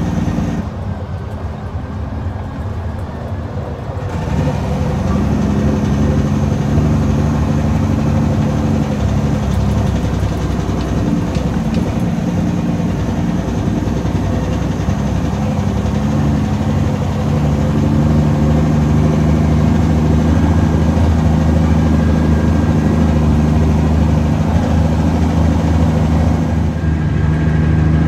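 Heavy truck's diesel engine running under way, heard from inside the cab: a steady low engine note that gets louder about four seconds in.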